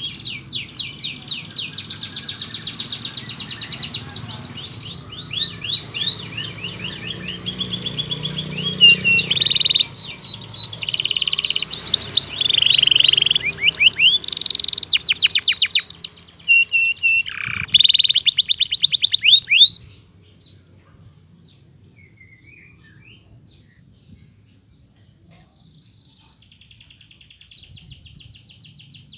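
Domestic canary singing a long, vigorous song of fast trills and rapidly repeated sweeping notes. About two-thirds of the way through it breaks off into a pause of several seconds with only a few faint chirps, then starts again more quietly near the end.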